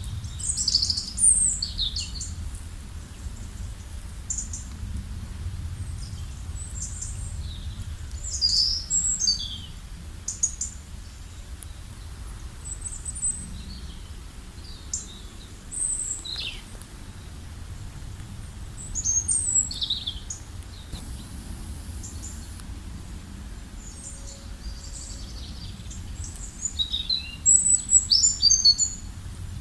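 Songbirds chirping in short, high calls and trills, with the busiest flurries near the start and near the end, over a steady low rumble.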